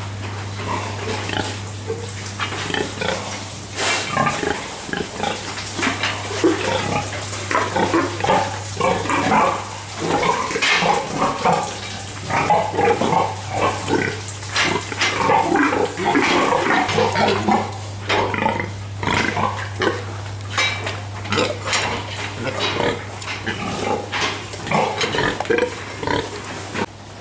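Many sows in steel sow stalls grunting in short, overlapping calls, with occasional clanks of the metal stall bars, over a steady low hum.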